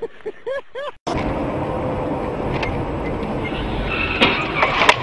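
A person's voice in short rising-and-falling cries, cut off suddenly about a second in. Then a car's engine and road noise heard from inside the cabin of a dashcam car, with a few sharp knocks near the end.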